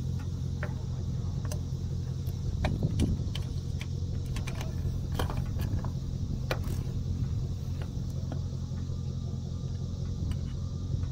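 Hand tools working bolts on an aluminium motor-mount bracket: scattered ratchet clicks and metallic clinks, loudest about three seconds in, over a steady low hum.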